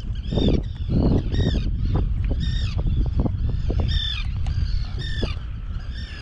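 Birds calling over open water, a quick run of short calls, roughly two or three a second, over a steady low rumble.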